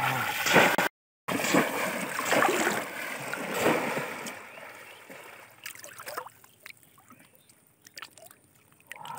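Heavy splashing of shallow muddy water as a person lunges and thrashes through it. It breaks off for a moment about a second in, and after about five seconds it dies down to a few small splashes and drips.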